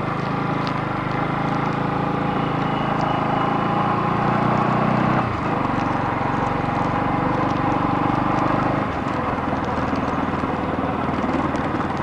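Vehicle engine running steadily while on the move. Its pitch drops about five seconds in, and again near nine seconds, as the speed changes.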